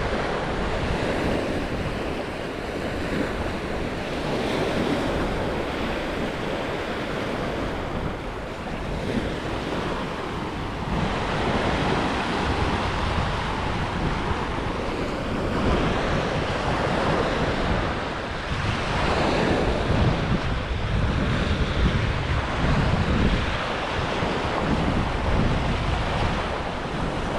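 Sea waves washing onto a beach in a steady rush that swells and eases, with wind buffeting the microphone.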